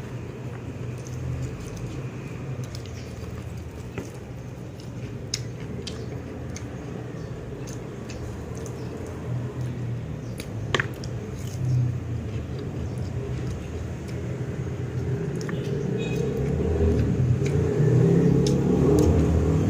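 Close-up eating sounds: chewing and biting into fried chicken, with scattered crisp clicks from the crunchy skin. Underneath runs a steady low traffic rumble that grows louder near the end as a vehicle approaches.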